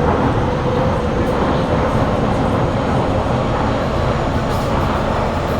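Interior of a Kawasaki Heavy Industries C151 metro train in motion: steady running noise of wheels on rail and the carriage, with a faint traction-motor hum that slowly rises in pitch.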